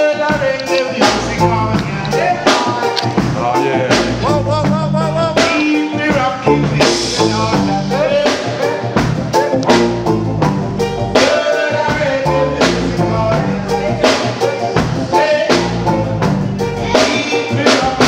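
Live reggae band playing: drum kit and electric bass with a man singing into a microphone over them.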